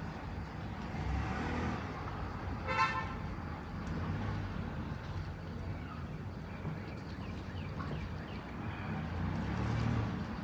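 Steady low rumble of road traffic, with one short car-horn toot about three seconds in.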